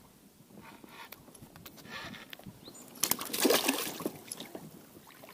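A hooked pike thrashing and splashing at the water surface as it is lifted on the line beside the boat, with a loud splash about three seconds in that lasts about a second.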